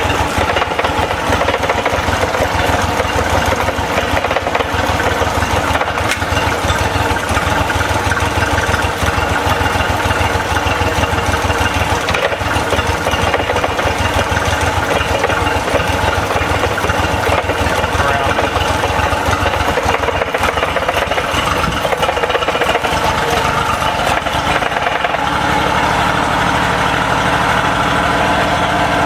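Honda BF30 four-stroke outboard running steadily at a slightly raised idle, with a rapid knocking that comes when it is in gear; the owner hopes it is only a shift linkage adjustment. About 25 seconds in the knocking eases and the engine's tone changes.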